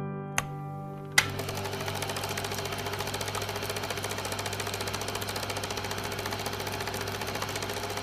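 Piano music dies away, with a single click. About a second in, a small machine starts abruptly and runs with a rapid, even chatter over a low steady hum.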